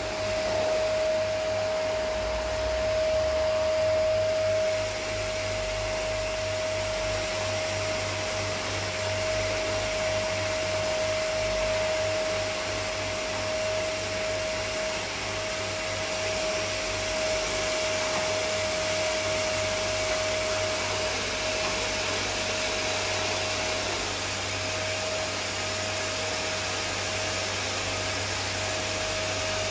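Canister vacuum cleaner running steadily, a rushing noise with a constant high motor whine.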